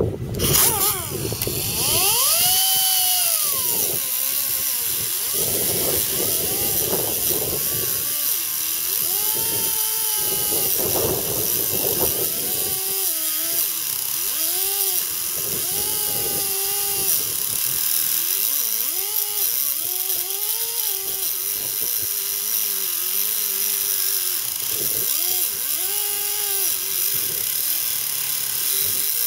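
Small handheld cut-off wheel grinding through a steel bolt. It runs continuously, its whine rising and falling in pitch over and over as the wheel is pressed into and eased off the cut.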